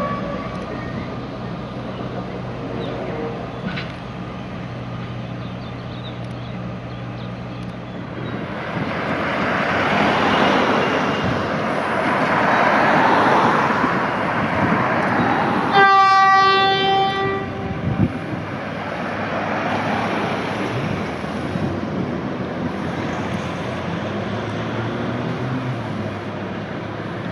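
Narrow-gauge diesel locomotive running slowly with a steady low engine hum, then a louder rising and falling rumble of the train moving. Just past halfway, one horn blast on a single note, held about two seconds.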